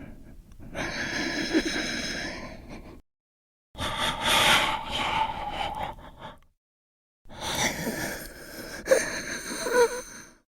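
Creepy, wheezing human breathing sound effect: three long breaths of about three seconds each, separated by silence, the last with a few faint squeaky rattles.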